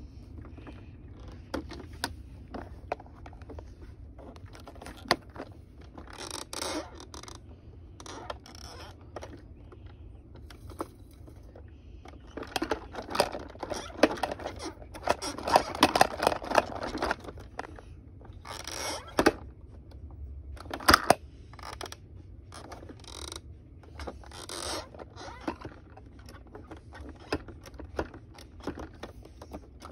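Plastic Matchbox toy recycling garbage truck worked by hand: its lift arm raises and tips a small plastic toy bin over the hopper, with repeated plastic scraping, rattling and sharp clicks. The longest, loudest run of scraping comes about halfway through.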